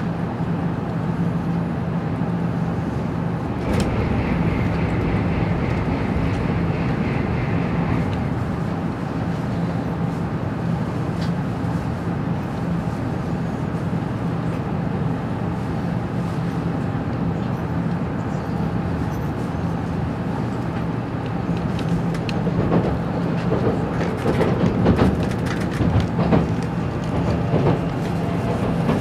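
Interior running noise of an N700 series Shinkansen motor car: a steady rumble of wheels on rail and air rushing past, with a low hum. A higher whine sounds between about 4 and 8 seconds in, and clicks and knocks from the wheels on the track become frequent over the last several seconds as the train nears a station stop.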